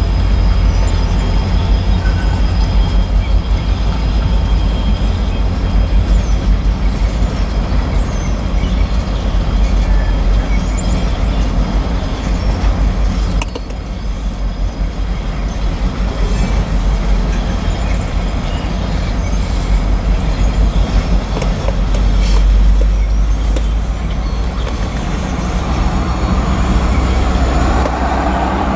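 Tank cars of a freight train rolling past close by: a steady low rumble with a pulsing clatter of steel wheels on the rails.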